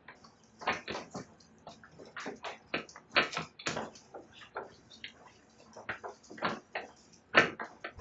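Sulphur-crested cockatoos' beaks gnawing and splintering the wooden verandah rail: irregular sharp clicks and cracks, several a second.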